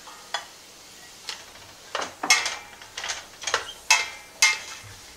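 A spoon scraping and knocking against a glass bowl and a stainless steel stock pot as diced celery and onion are pushed in and stirred. It makes a few faint clicks, then several sharp clacks with brief ringing in the second half.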